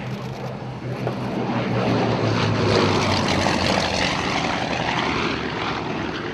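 Grumman F7F Tigercat's twin Pratt & Whitney R-2800 radial engines in a fly-past. The sound grows louder to a peak about three seconds in, sweeps in pitch as the aircraft passes, then eases off.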